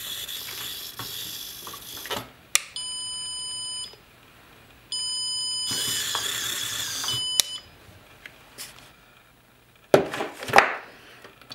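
Small RC car's reverse-warning buzzer beeping twice with a steady electronic tone, the second beep longer and mixed with the whir of its chain-driven drive motor, a signal that it is backing up. Whirring before the first beep, and a few knocks near the end.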